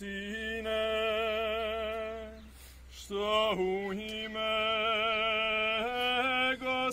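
Congregation singing a slow, chant-like hymn, with one close male voice loudest, holding long steady notes. The singing breaks off for a breath about two and a half seconds in and picks up again half a second later.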